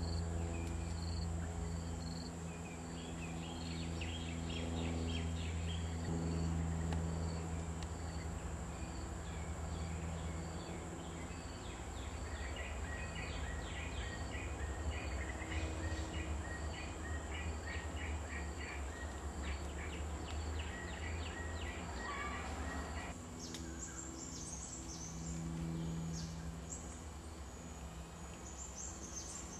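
Natural outdoor background of insects and birds: a steady high-pitched insect drone with evenly repeated chirps and series of short calls over a low hum. Near the end the calls break off and a different mix of chirps takes over.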